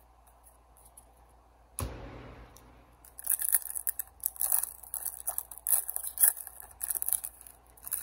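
A sudden thump about two seconds in. Then the wrapper of a trading-card pack is torn open and crinkled in short, crackly bursts.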